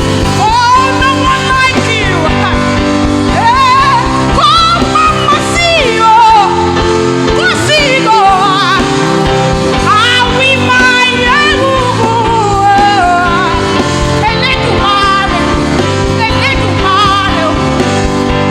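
Live gospel worship music: a lead singer sings a wavering melody with heavy vibrato over sustained instrumental chords from the worship band.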